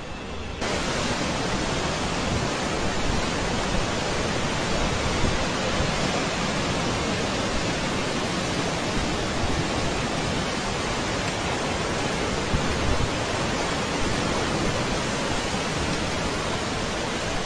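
Steady, even rushing noise of heavy rain and floodwater, which cuts in abruptly about half a second in.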